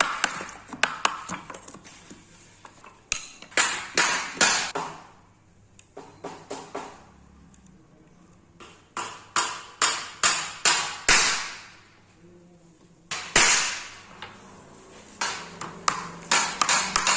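Hammering: sharp knocks in irregular bunches of a few strikes each, with pauses between, some strikes ringing briefly.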